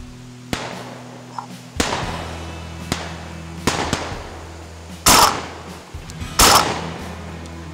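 Shotguns firing at passing wood ducks: a string of about seven shots, some distant and some close, each echoing out. The two loudest come near the end, about a second and a half apart, over background music.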